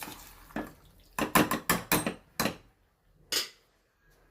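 A spoon stirring kidney beans in masala in a pressure cooker pot, knocking and scraping against the metal in a quick run of clinks, with one last knock about three seconds in.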